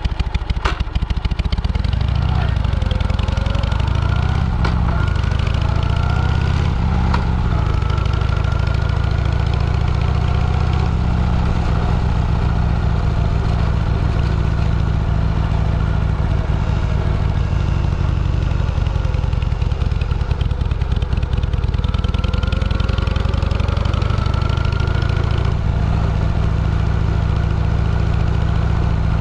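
Motorcycle engine running on the move under a heavy low rumble, its pitch rising and falling several times as the speed changes.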